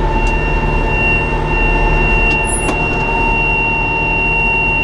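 Tractor and John Deere 535 round baler running steadily under a continuous high-pitched monitor buzzer. The buzzer is the bale-size warning going off on only a 3-foot bale, which the farmer takes for a sensor problem.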